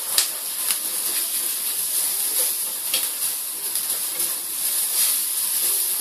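Chopped onion and ground spices sizzling steadily in hot oil and butter in a non-stick pan, with a few short scrapes and taps of a spatula stirring them.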